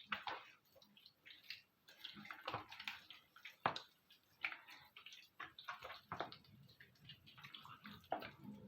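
Faint, irregular wet squelching and small clicks of hands working a spice rub into raw chicken thighs.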